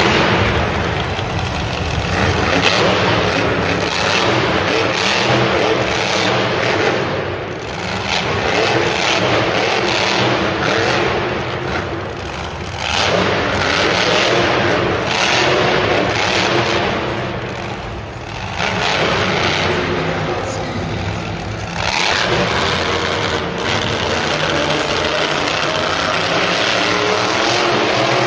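Grave Digger monster trucks' supercharged V8 engines revving hard on an arena dirt floor, the sound swelling and dipping with throttle several times, about every four to six seconds.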